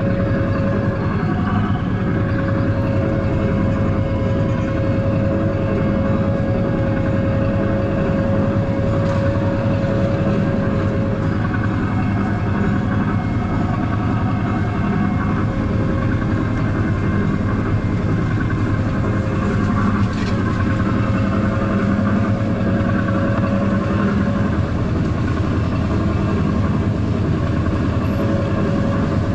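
A steady mechanical drone, like a running motor, with a constant humming tone that stays at one pitch.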